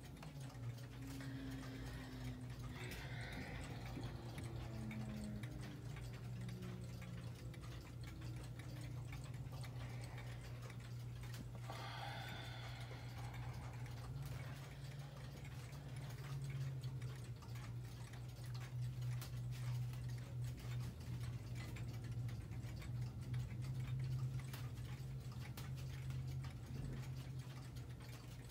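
Howard Miller 613-303 pendulum clock ticking, over a steady low hum.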